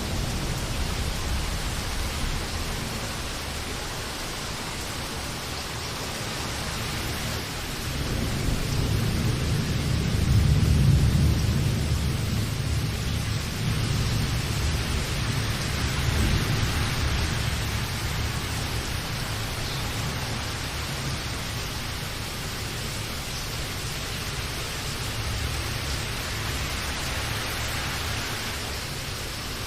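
Steady rain hissing, with a low rumble of thunder that swells about eight seconds in, peaks a few seconds later and dies away over several seconds.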